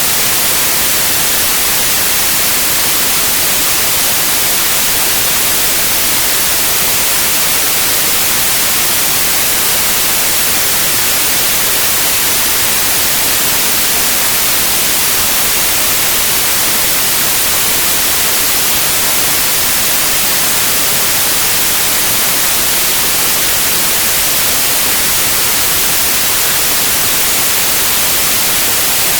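Synthetic white noise: a loud, even, unchanging hiss with most of its energy in the high frequencies.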